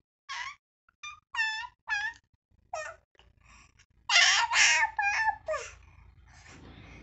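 Baby babbling in a string of short, high-pitched vocal sounds, growing louder from about four seconds in.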